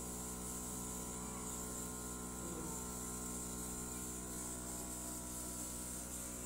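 A steady hum made of several fixed tones, with an even high hiss over it.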